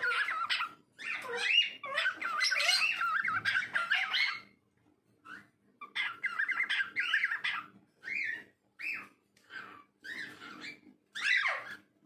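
Cockatiel whistling and warbling in quick, wavering phrases: two long runs in the first half, then a string of shorter calls, the last sliding down steeply near the end.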